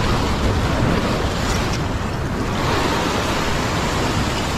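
Ocean swell surging and washing white water against a rock ledge, a steady rush, with wind rumbling on the microphone.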